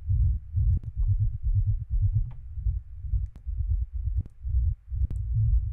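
Techno rumble loop samples being auditioned: a deep, pulsing low bass rumble at 128 bpm, with five sharp clicks spread through it as the selection changes from one loop to the next.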